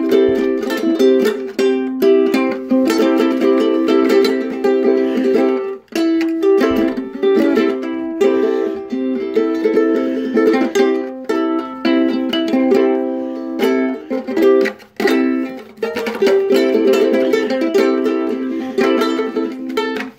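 Ukulele strummed in quick, repeated chords that change as it goes, with two short breaks about six and fifteen seconds in.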